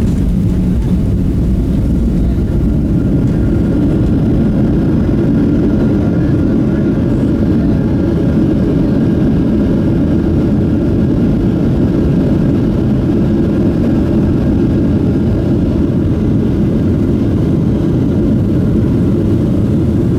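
Cabin noise of a Boeing 737-700 rolling along after landing: a steady, loud low rumble of its CFM56 jet engines and the wheels, with a faint steady whine above it.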